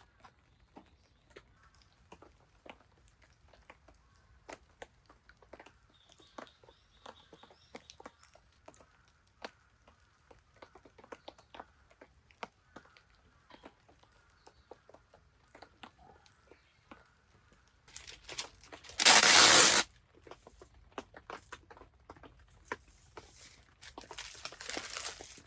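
Wood campfire crackling, with irregular light pops scattered throughout. About nineteen seconds in, a loud rush of noise lasts about a second, and a softer noisy stretch follows near the end.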